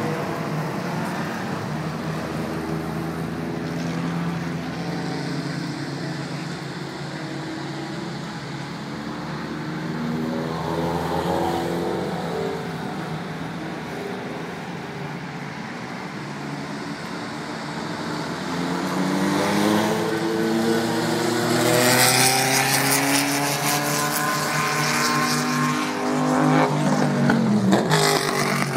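Vintage racing cars running on a road course, engines revving as they accelerate past one after another. It gets louder from about two-thirds of the way in, and near the end one car passes close with its engine pitch dropping sharply as it goes by.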